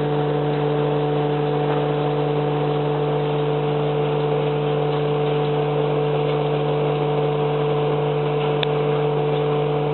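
Mobile trommel screen running: a steady, unchanging machine drone with a constant low hum.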